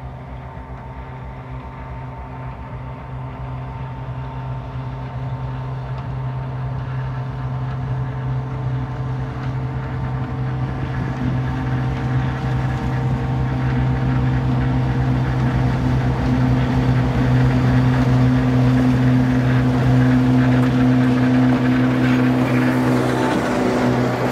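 Diesel locomotive engine running at a steady pitch, growing steadily louder over the whole stretch.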